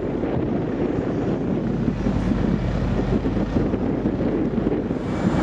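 Wind buffeting the microphone, a steady fluttering rush over a low rumble.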